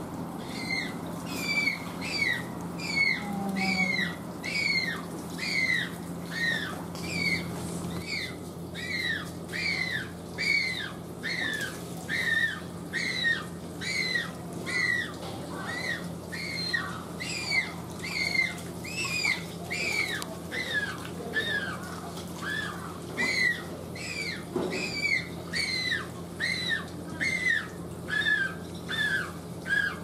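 A newly fledged Humboldt penguin chick calling over and over, with high, thin peeps that slide downward, about two a second. The voice is still a juvenile's, nothing like the deep call of an adult. A steady low hum runs underneath.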